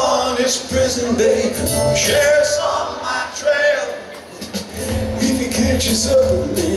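Live band playing an instrumental passage: acoustic guitar, drums and cymbals. The deep bass drops away for a few seconds and comes back in about five seconds in.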